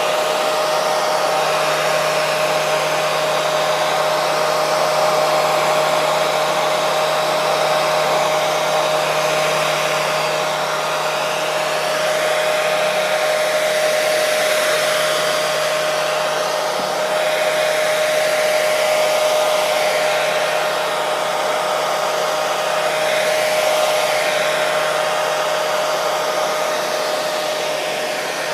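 Hair dryer running continuously: an even rush of blown air with a steady whine through it.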